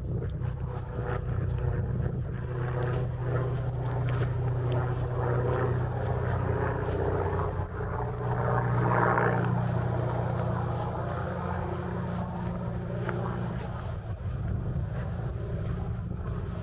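Wind buffeting the microphone in a steady low rumble, with a walker's footsteps crunching on a trail lightly covered in ice and snow.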